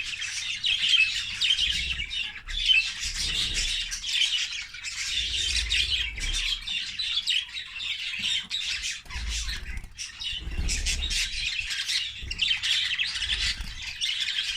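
English (exhibition) budgerigars chattering, a dense, unbroken stream of short calls from several birds, with low rumbles now and then underneath.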